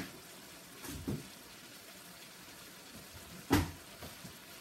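Vegetables cooking in a hot wok with a faint, steady sizzle, and a sharp knock about three and a half seconds in.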